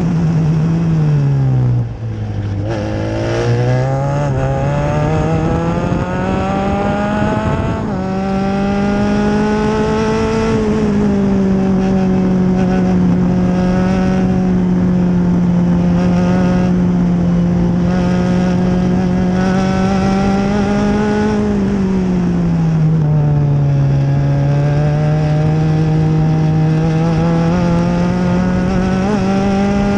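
Open-wheel formula race car's engine heard onboard at racing speed. The revs drop sharply about two seconds in and climb back through the gears. They then hold fairly steady, ease off again past the twenty-second mark and build once more near the end.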